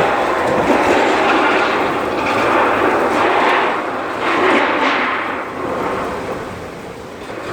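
Strong gusting windstorm wind: a loud rushing noise that swells and eases in several gusts, dropping off somewhat near the end.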